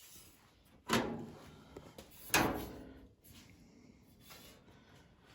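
Sheet-metal body panel being shifted and set down: two sharp clanks, about a second and a half apart, each ringing briefly, followed by a few fainter knocks.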